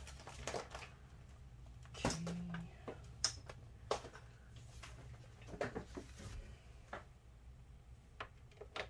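Light, scattered clicks and taps of a laptop charger's cable and plug being handled and plugged into a MacBook Pro.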